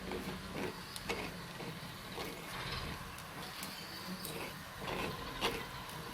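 Spatula scraping and tapping against a pan as scrambled eggs are stirred: a string of irregular scrapes and clicks.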